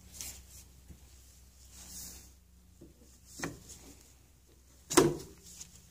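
Steel drive shaft of a 1977 Evinrude 4 HP outboard being worked down into the lower-unit gearcase to engage the pinion gear: a soft rub, a knock a little past three seconds, and a louder sharp metal knock about five seconds in.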